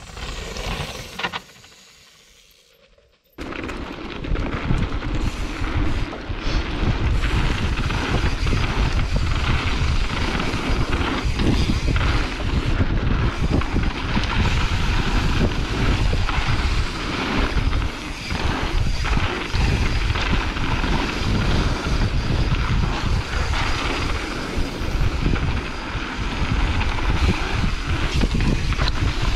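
Mountain bike riding fast down a dirt trail, heard from a GoPro on the rider: wind buffeting the microphone and knobby tyres rumbling and jolting over the dirt. It starts suddenly about three seconds in, after a brief, quieter whoosh of a rider passing.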